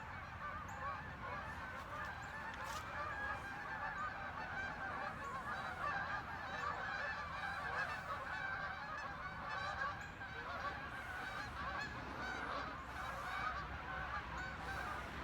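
A flock of thirty or forty geese honking as they fly over, many calls overlapping without a break.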